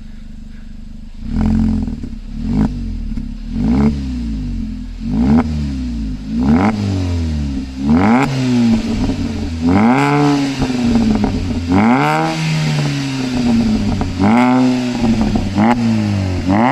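VW Golf Mk5 2.0 FSI four-cylinder naturally aspirated engine, breathing through a custom Mostec exhaust with sport catalytic converter, idling briefly and then revved in repeated throttle blips. Each rev rises and falls back toward idle, about a dozen of them, roughly one every second or two.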